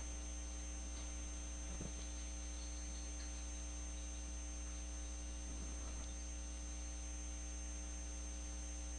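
Steady electrical mains hum, with a faint high steady whine above it.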